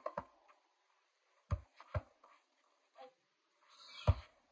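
Basketball bouncing on a concrete patio: a few dull thuds, two about half a second apart in the middle and a louder one near the end, with a brief rustle just before it.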